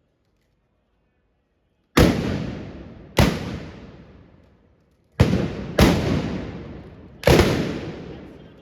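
Trabucs (short Catalan blunderbusses) fired with blank gunpowder charges: five loud single shots, the first about two seconds in, then at uneven intervals, each with a long echoing tail.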